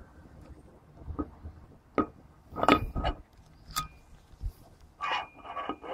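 Metal hand tools (a torque wrench and socket ratchet) clinking and knocking as they are handled, a handful of sharp metallic clicks, some with a brief ring.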